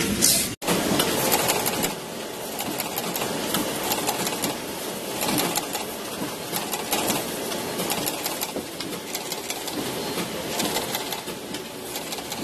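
Box-factory machinery running with a steady clatter of quick, uneven clicks. A short crinkle of plastic bags at the very start cuts off abruptly about half a second in.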